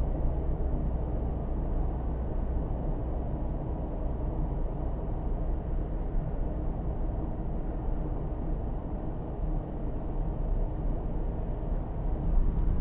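Steady low rumble inside the cabin of a Mazda2 with the 1.5-litre SKYACTIV-D turbodiesel, cruising in sixth gear at about 1500 rpm, engine drone mixed with tyre and road noise.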